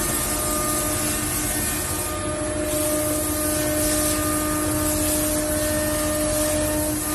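CNC router running, a steady spindle whine under a loud cutting hiss. The high hiss drops off briefly about two seconds in, then comes back.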